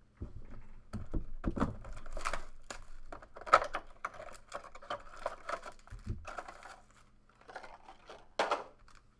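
Plastic shrink wrap being torn and crinkled off a box of trading cards, in irregular crackling rustles, with a few low knocks from the box being handled, mostly in the first two seconds and once around six seconds in.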